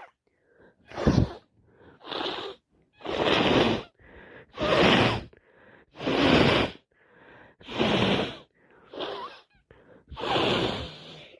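A person with a snotty head cold clearing a congested nose: about eight forceful, wet bursts of air through the nose, roughly one every second and a half, with quieter breaths between.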